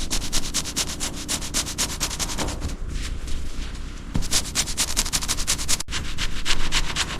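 Fast rhythmic rubbing strokes, about eight to ten a second, as in hand scrubbing or sanding, with abrupt breaks about four and six seconds in.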